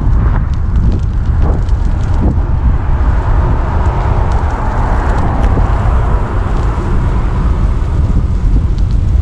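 Wind buffeting the microphone over the steady low rumble of a moving vehicle, with a few scattered small clicks.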